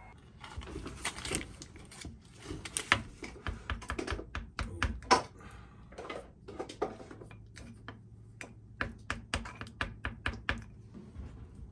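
A busy, irregular run of light clicks and taps, several a second at times, with a few louder knocks, the loudest about halfway through.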